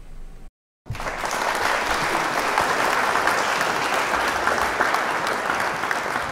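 Applause from a crowd: a dense, even patter of many hands clapping. It starts abruptly about a second in, after a brief moment of dead silence.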